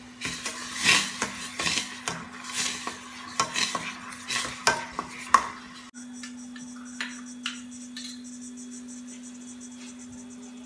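Metal spoon stirring milk in a stainless steel saucepan, scraping and clinking against the pan in irregular strokes for about five and a half seconds. After that a steady low hum with a few light clicks.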